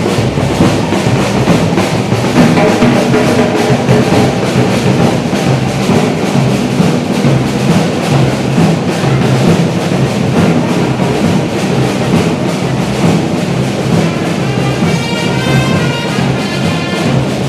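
Batucada samba percussion ensemble playing a fast, steady drum rhythm. About fifteen seconds in, a pitched melody joins the drumming.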